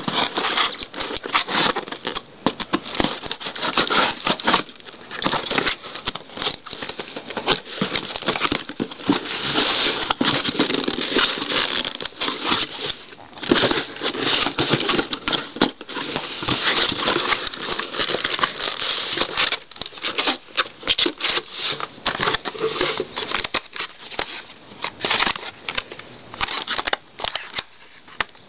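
A cardboard box being cut open and unpacked by hand: steady scraping, rustling and crinkling of cardboard, tape and packing paper, broken by many small clicks and knocks.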